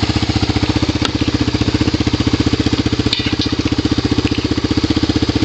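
Honda ATC 250SX three-wheeler's four-stroke single-cylinder engine idling steadily, with an even, unchanging beat.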